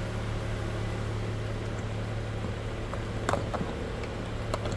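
Steady low hum of the Range Rover's engine idling, with a couple of light handling clicks about three seconds in and near the end.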